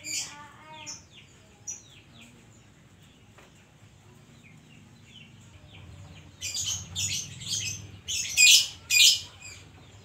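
Oriental magpie-robin singing: scattered high chirps, then about six seconds in a run of loud, rapid, shrill song phrases, the loudest near the end.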